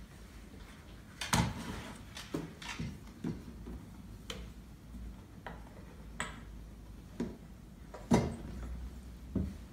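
Irregular clicks and knocks of a small box and a book being handled and set down on a wooden desk. The sharpest knocks come about a second in and about eight seconds in.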